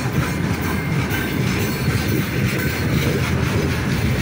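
Loaded freight train of boxcars rolling past: a steady rumble and clatter of steel wheels on the rails.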